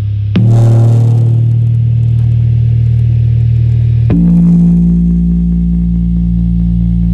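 Korg Monopoly analog synthesizer holding a loud, steady low bass drone, changing to a new held note with a sharp attack about half a second in and again about four seconds in.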